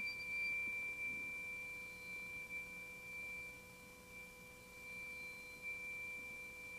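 Small circular Chladni plate bowed at its edge with a violin bow, sounding one high, pure, steady ringing tone that swells slightly now and then and slowly weakens. The note is the plate vibrating in one of its modes, the mode that sets the sprinkled sand into a figure.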